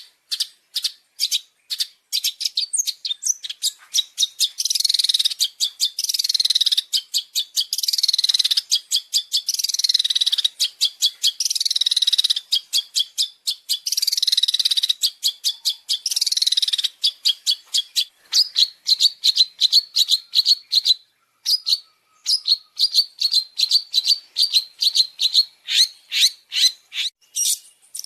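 Loud songbird singing: a fast string of sharp chip notes, then a run of falling sweeps about every two seconds, then a rapid trilled chatter over the last third.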